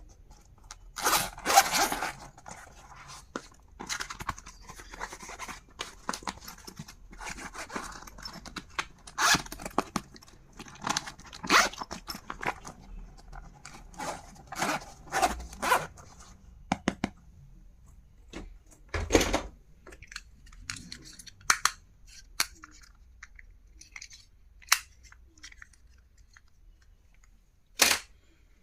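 Packaging being handled and torn open during an unboxing: irregular bursts of crinkling and tearing, then sparser clicks and taps in the second half, with a sharp knock near the end.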